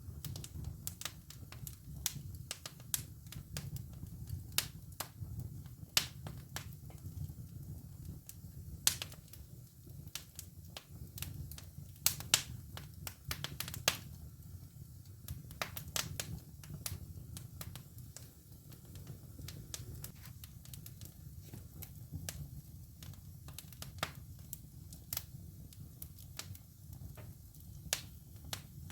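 Wood fire burning in a fireplace, crackling with irregular sharp pops over a low steady rumble, a few pops louder than the rest.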